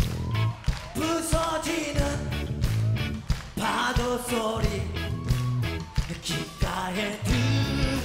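Live rock band playing: a male lead vocalist singing in Korean over electric guitars, bass and a steady drum beat.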